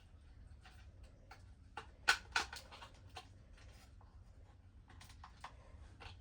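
Faint, scattered clicks and scrapes of a screwdriver and wires being worked at an alarm keypad's screw terminals, with two sharper clicks about two seconds in.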